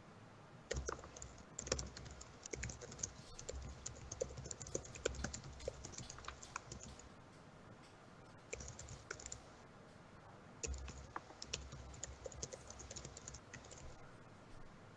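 Typing on a computer keyboard: three runs of quick key clicks with short pauses between them, the first and longest lasting about six seconds.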